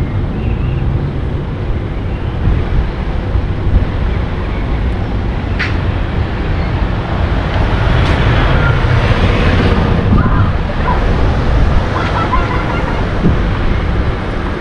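Steady road and wind noise from a camera on a car driving through city traffic. It grows louder for a few seconds around the middle, when a city bus is close alongside.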